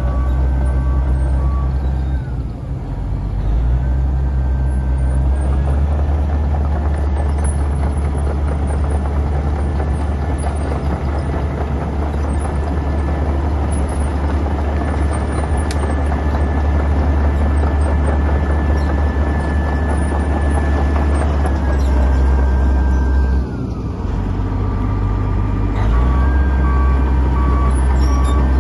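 Wirtgen W220 cold planer's diesel engine running steadily as the machine drives on its tracks, its note dipping briefly twice. A warning alarm beeps evenly in the first couple of seconds and again near the end.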